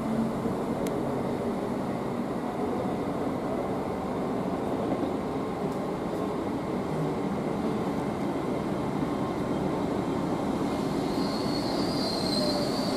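Class 769 electro-diesel multiple unit running over pointwork, with a steady rumble of wheels and running gear. A high wheel squeal from the curves sets in near the end.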